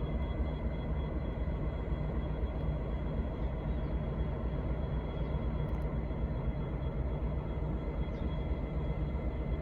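V/Line N class diesel-electric locomotive idling steadily: an even low engine rumble with a faint constant high whine.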